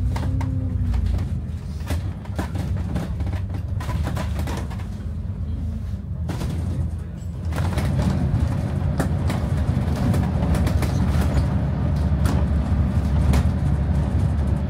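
Bus interior on the move: a steady low engine and road rumble with frequent rattles and knocks from the cabin. The engine note rises and falls briefly at the start, and the rumble grows louder and denser about halfway through as the bus drives at speed on an open road.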